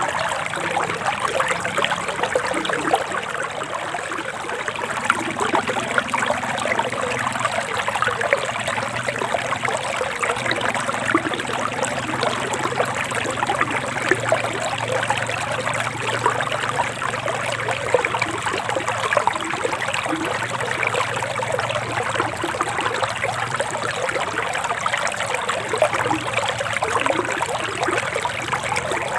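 Forest stream babbling and trickling steadily, an even rush of running water with no pauses.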